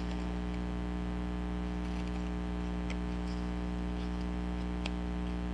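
Steady low electrical mains hum, with a couple of faint clicks.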